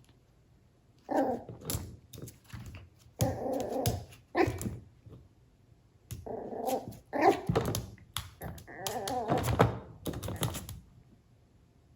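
Chihuahua-poodle mix puppy barking and growling at a plate in short bursts, about seven over ten seconds, mixed with thunks of the plate being knocked about; it stops about a second before the end.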